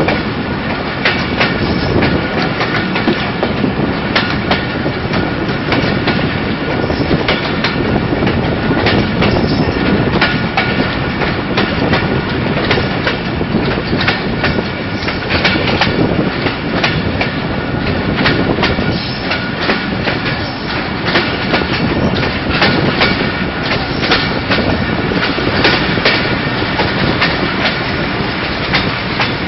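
Passenger train coach running over the rails, heard from its open door: wheels clattering over rail joints in many quick, uneven clicks over a steady rolling rush.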